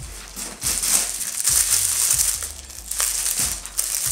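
Clear plastic bags and wrapping crinkling and rustling unevenly as packed items are pulled out and handled.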